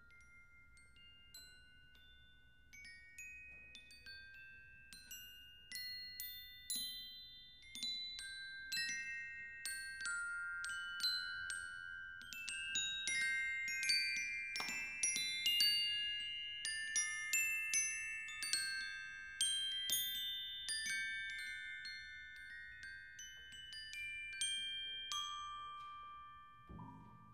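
High-pitched tuned metal mallet percussion, glockenspiel-like: many single notes struck one after another, each left to ring, sparse at first, then denser and louder through the middle before thinning out. A lower struck sound comes in at the very end.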